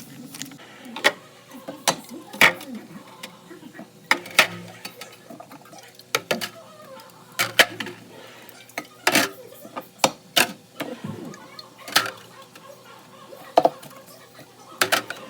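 Food containers and jars being set down and moved around on fridge shelves: irregular hard clacks and knocks, about one a second, some in quick pairs.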